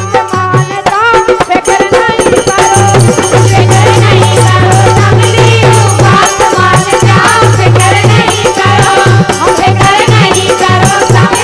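Bundeli wedding folk song (gari): women singing over fast, busy percussion.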